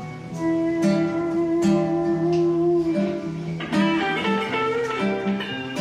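Instrumental bossa nova passage: acoustic guitar plucking a repeating chord pattern while an electric guitar plays long held notes over it.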